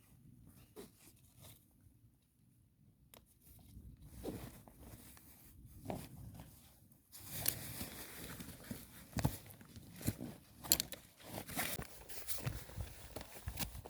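Rustling and handling sounds with scattered short clicks and knocks, busier in the second half.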